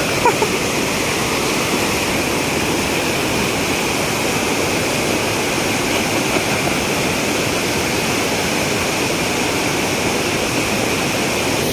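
Fast whitewater river rushing over and around large boulders, a steady, unbroken noise of churning water.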